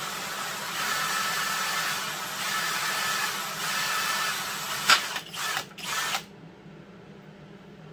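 Cordless drill boring into a metal pulley hub, the motor speeding up in three short spells, then a few sharp clicks before it stops about six seconds in.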